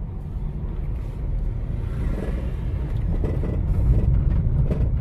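Honda HR-V driving, its engine and tyre rumble heard from inside the cabin, growing somewhat louder about two seconds in.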